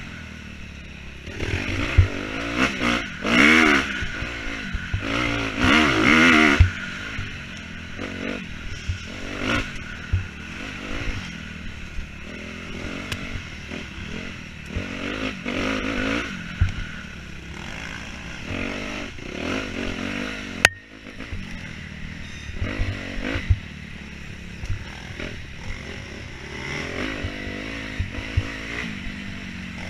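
Off-road motorcycle engine revving up and down as it is ridden hard over an enduro track, with scattered knocks and clatter from the rough ground and one sharp click about two-thirds of the way through.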